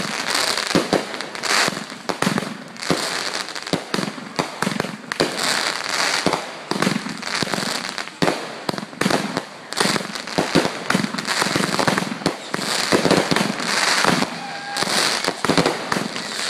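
Aerial fireworks in a finale barrage: bursts going off in rapid, overlapping succession with crackling, hardly a pause between bangs.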